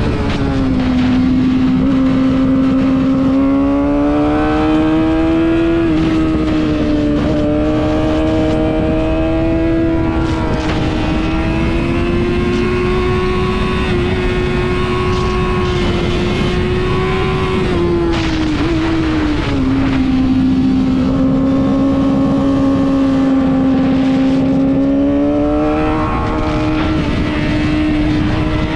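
Yamaha R6 600 cc inline-four sport bike engine running at high revs on track, its note held high with slow rises and falls and dropping sharply about a second in and again around 18 seconds before climbing back. Heavy wind rush over the helmet-camera microphone throughout.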